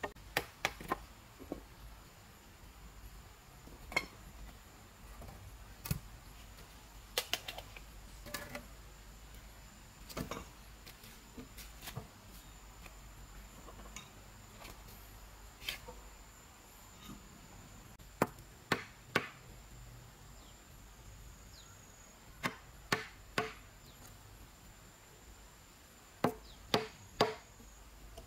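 Steel chisel being struck into a solid wood beam to cut a mortise: sharp knocks, singly or in quick groups of two or three, with pauses of a few seconds between. A faint steady high tone runs underneath.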